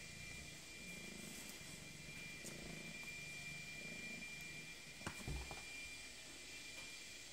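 A domestic cat purring close by, a faint low rumble that pulses on and off, with a couple of soft thumps about five seconds in.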